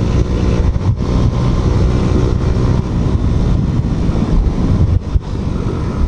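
Bajaj Pulsar NS125 single-cylinder engine running at riding speed through an aftermarket SC exhaust, with wind rushing over the microphone. The sound dips briefly twice, about a second in and near five seconds.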